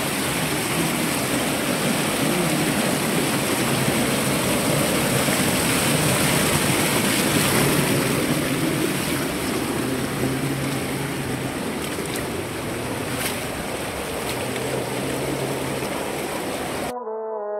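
Rocky mountain stream rushing over boulders and small cascades: a steady water noise. Just before the end it cuts off abruptly and music starts.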